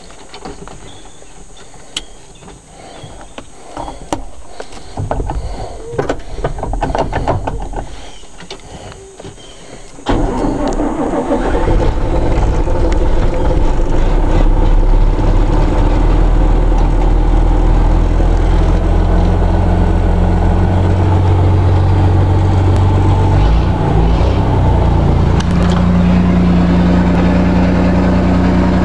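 1983 Volvo dump truck diesel engine being started cold after sitting untouched for a month: the starter cranks it over for a few seconds, then the engine catches about ten seconds in with a sudden jump in loudness and runs steadily at idle.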